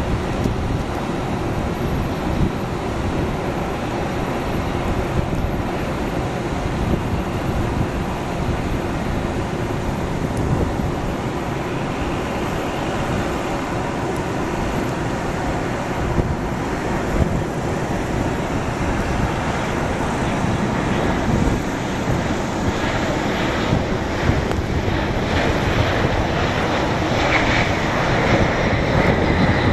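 Boeing 737-800's CFM56 jet engines heard from a distance on final approach: a steady rumble that grows louder over the last ten seconds or so, with a faint whine near the end as the jet touches down and rolls past. Wind buffets the microphone.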